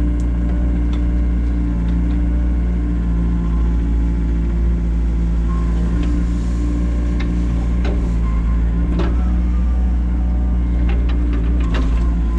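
Excavator's diesel engine running steadily while it digs, with short squeaks and ticks from the machine now and then. The squeak is a fault the machine is due to go in for repair over.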